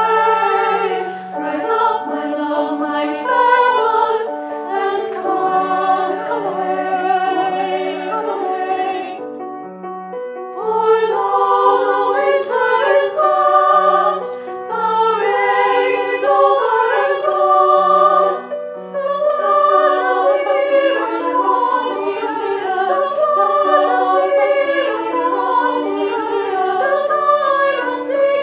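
Women's chorus singing a choral piece in two-part treble voices with piano accompaniment. There is a short break between phrases about ten seconds in.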